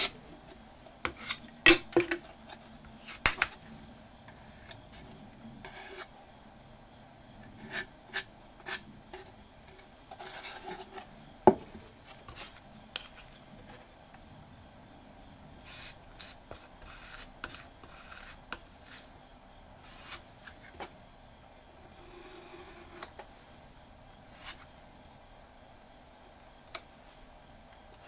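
Wooden spatula (hera) scraping and tapping as sabiji lacquer paste is worked. Irregular short scrapes and sharp clicks come as the spatula is drawn across the mixing board and the corners of the lacquered box.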